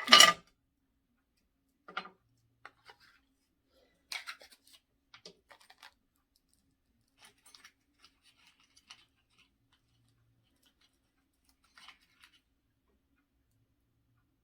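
Objects being handled and set down on a table: one loud clunk right at the start, then scattered light clicks and rustles.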